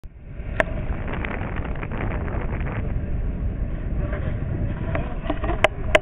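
Steady low rumble of a boat's engine running under way on the water. Near the end a run of sharp, evenly spaced taps begins.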